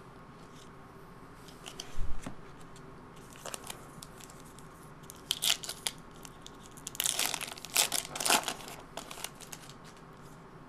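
Foil trading-card pack wrapper crinkling and being torn open, in short crackly bursts about halfway through and again near the end. A low thump about two seconds in.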